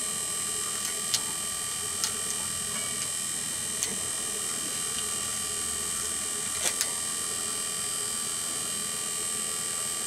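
Refrigeration vacuum pump running steadily with a high whine, with a few sharp clicks as snips cut into a cardboard refrigerant carton, two of them close together about two-thirds of the way in.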